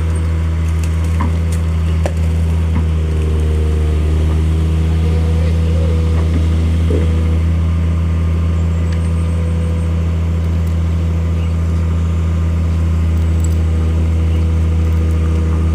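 A heavy engine idling steadily close by: a deep, constant hum with no revving.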